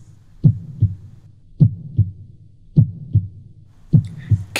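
Slow heartbeat sound effect: four low double thumps (lub-dub), a little over a second apart.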